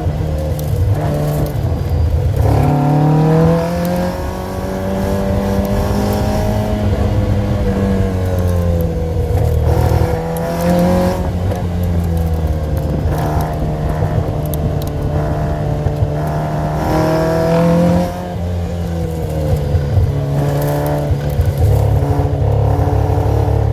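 Custom-built car's engine heard from a GoPro on the dashboard inside the car, its note climbing and falling as the car accelerates and eases off, with several sharp drops in pitch between pulls.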